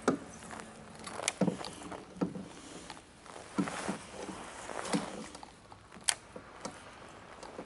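Scattered knocks and clunks of a person moving about and handling gear in a small boat, about nine at irregular intervals.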